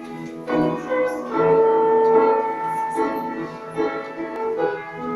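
Instrumental music: a keyboard playing sustained chords and a melody, the introduction before the choir sings.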